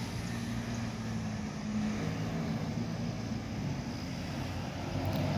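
A steady low mechanical hum from a running motor, over a faint even outdoor noise.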